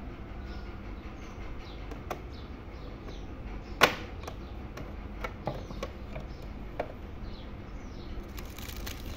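A compartment cover on the back of a Sanyo 8500 tape recorder being prised open: a few light clicks, the loudest a sharp snap about four seconds in. Near the end a plastic bag stored inside starts to crinkle.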